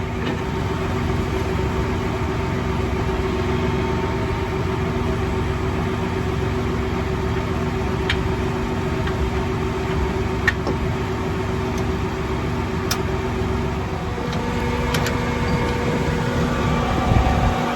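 Farm tractor engine running steadily, with a few faint clicks; its tone changes about three-quarters of the way through.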